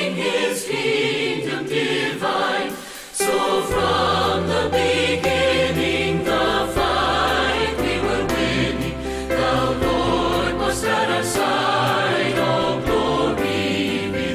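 Background music of a choir singing a hymn with instrumental accompaniment. It drops out briefly about three seconds in, then resumes with a deep, sustained bass line under the voices.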